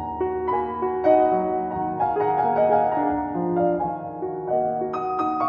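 Piano music: a slow melody of notes changing every half-second or so, over held lower notes.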